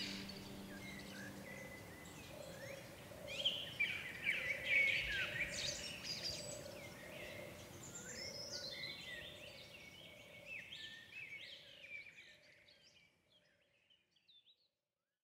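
Birds singing: many short chirps and warbled phrases overlapping. They fade out gradually and are gone near the end.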